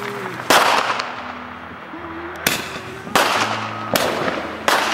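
A roman candle firework shooting off five loud pops, one about half a second in and four more coming quicker in the second half, each fading out over a moment.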